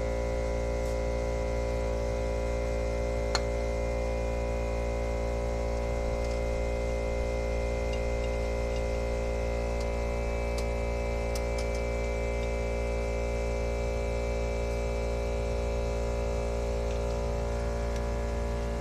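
McGraw 8-gallon 1.5 HP oil-free air compressor running steadily with a constant hum, cycled on to refill its tank after the impact wrench drew down the air. A single sharp click sounds about three seconds in.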